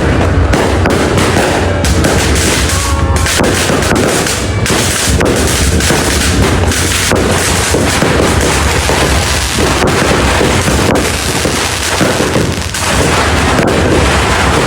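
New Year fireworks and firecrackers going off without a break, a dense barrage of overlapping cracks and booms.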